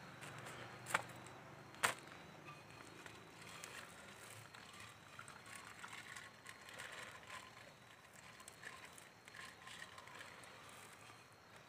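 Faint handling of a liquor bottle and glasses being poured: two sharp clicks about one and two seconds in, then faint scattered ticks over a low hiss.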